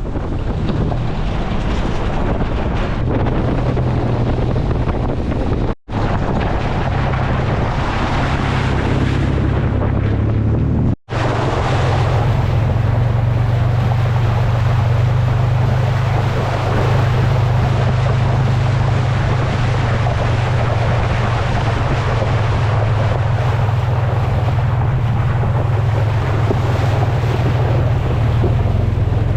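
Steady engine and road noise of the Titan-swapped Nissan Xterra driving, a deep constant hum under a broad rushing noise. It breaks off for an instant twice, about six and eleven seconds in.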